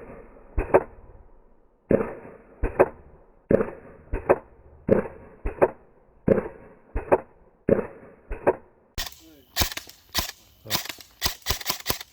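Airsoft replica firing: sharp single pops at an even pace of a little under one a second, then from about nine seconds in a quicker, sharper string of shots.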